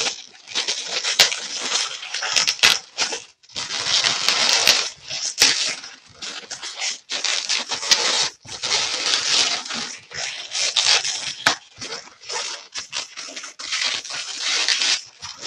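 Inflated 260 latex modelling balloons squeaking and rubbing against each other as one is wound through a twist and pulled tight. A continuous run of rubbery squeaks and creaks with a few short breaks.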